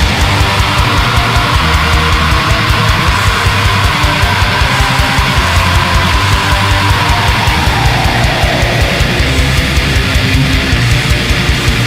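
Black metal recording: distorted electric guitars over a rapid, steady kick-drum pattern, with a guitar line sliding down in pitch about two-thirds of the way through.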